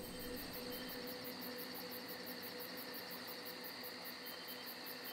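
Crickets chirping: a fast, even, very high-pitched pulse about five times a second, over a faint steady background hum.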